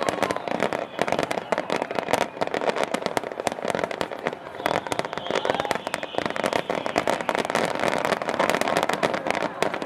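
Fireworks in the finale of a display, a dense continuous crackle of rapid pops, with a faint whistle about five seconds in.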